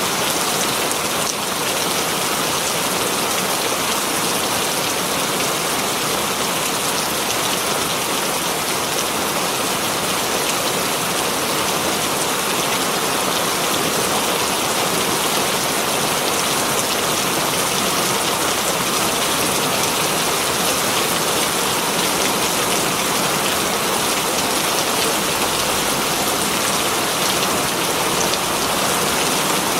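Very heavy rain pattering steadily on leaves, a dense even hiss of drops with no let-up.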